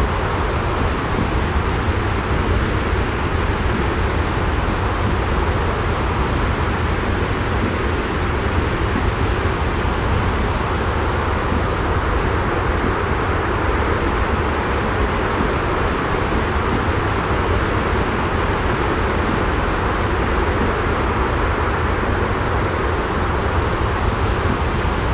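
Steady white-noise sleep track: an unchanging rush with a heavy low rumble and no separate sounds in it.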